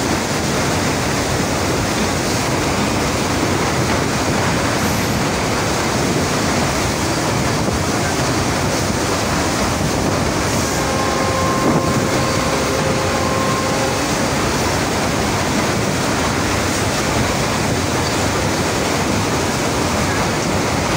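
Steady rush of river water pouring through the open barrage gates below, mixed with the noise of a passenger train running across the bridge. A faint held tone of a few pitches sounds briefly around the middle.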